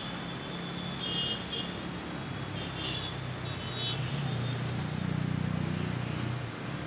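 Road traffic hum, with a vehicle engine growing louder about four seconds in and fading near the end.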